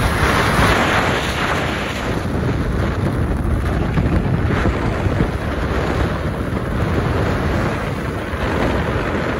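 Strong storm wind buffeting the microphone: a loud, uneven rushing rumble.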